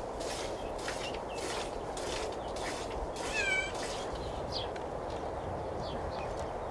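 A domestic cat meows once, a short call about halfway through, over a steady low hiss.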